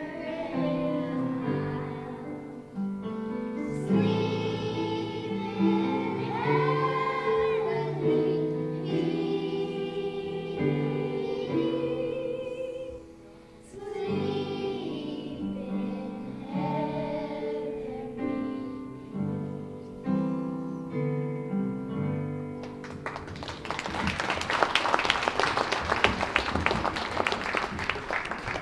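Children's choir singing a Christmas song over an instrumental backing track, ending about 23 seconds in; audience applause follows for the last few seconds.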